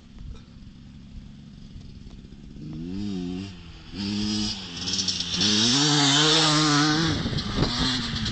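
Motocross bike coming across the field, its engine revving up and falling back with each gear change and growing louder to a peak about six seconds in.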